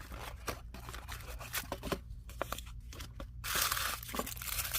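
Plastic toy packaging being handled and torn open: scattered crinkles and crackles at first, then a dense stretch of crinkling from about three and a half seconds in.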